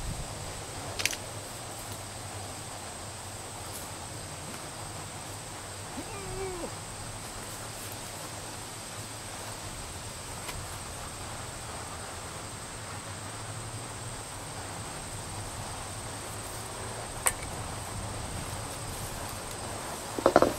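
Outdoor ambience: a steady high insect trill over a low hum, with a few isolated clicks. A quick cluster of clanks comes near the end.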